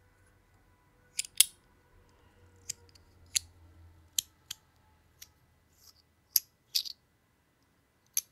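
Compoform V3 metal fidget being clicked and snapped by hand: about a dozen sharp, separate clicks at an irregular pace.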